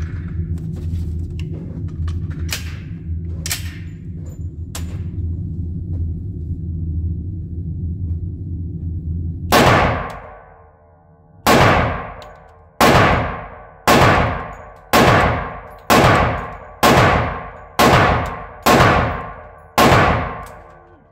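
Glock 20 pistol in 10mm Auto fired ten times: one shot, a pause of about two seconds, then nine more at roughly one a second, each with a ringing tail. A steady low hum comes before the shooting starts.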